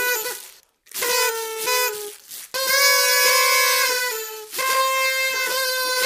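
Party trumpets blown in a series of long blasts at one steady pitch, with short breaks soon after the start, around two seconds in, and past four seconds.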